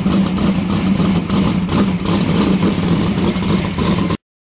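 A loud engine running steadily, cutting off abruptly about four seconds in.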